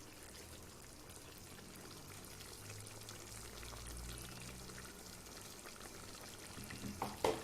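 Ground masala paste poured into a pan of chicken simmering in its own juices, with a faint, steady wet bubbling. A few sharp knocks of a utensil on the pan come near the end.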